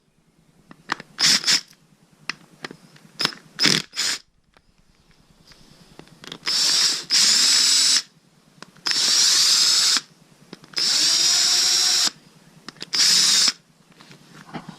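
Power drill run in four short bursts, each spinning up in pitch, after a few light metal clinks of tools and parts.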